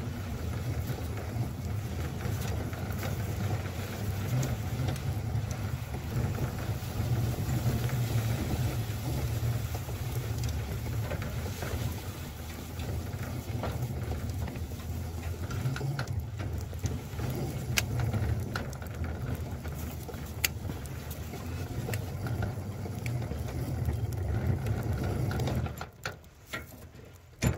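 7½-inch gauge miniature locomotive running steadily as its plow pushes through heavy, wet snow, with scattered clicks and knocks over a low drone. The running sound cuts off about 26 seconds in as the locomotive stops.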